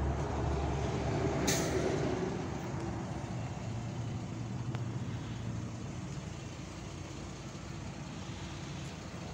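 A nearby motor vehicle's engine running, with a short sharp hiss about one and a half seconds in; the engine sound then fades away over the next couple of seconds, leaving a low, even traffic background.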